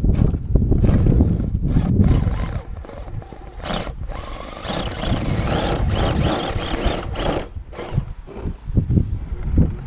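Axial SCX10 RC rock crawler driving, its electric motor and gears whining in a wavering pitch that rises and falls with the throttle, with scattered clicks and knocks from the chassis. Heavy wind rumble on the microphone in the first couple of seconds.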